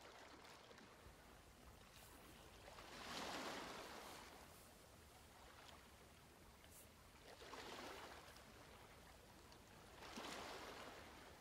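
Near silence: a faint steady hiss, with three soft swells of rushing noise, each about a second long.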